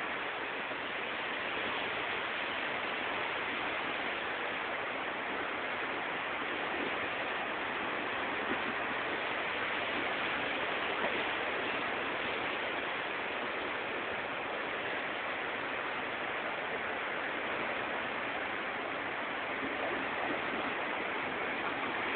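Rough sea surf washing over and around coastal rocks: a steady, unbroken rushing of foaming water.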